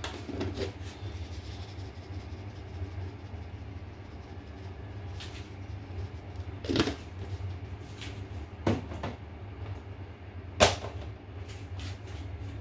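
Kitchen handling sounds: a handful of sharp knocks and clicks, the loudest about ten and a half seconds in, over a steady low hum.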